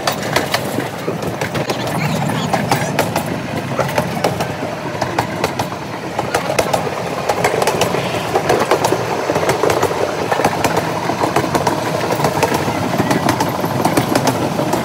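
Heritage steam railway train running on the track, wheels clattering over the rails with a steady rumble and many sharp clicks and knocks.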